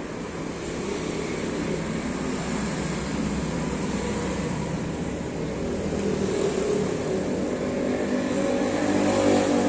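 A motor vehicle's engine running and growing louder over the last few seconds, as if drawing near.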